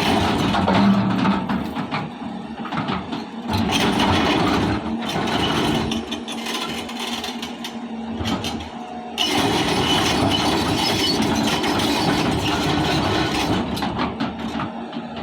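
Hyundai excavator's diesel engine running under working load, its level dipping and swelling and jumping louder about nine seconds in.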